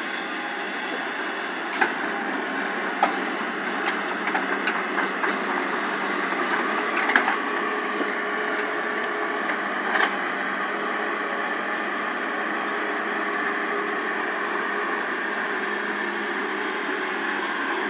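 A steady machine hum and rumble with a few sharp clicks and knocks, the loudest about seven seconds in.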